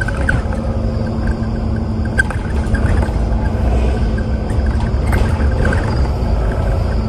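Bus engine and road noise heard from inside the passenger cabin: a steady low rumble with a constant hum. Light rattles and squeaks from the cabin fittings come and go, a few around two seconds in and again near five to six seconds.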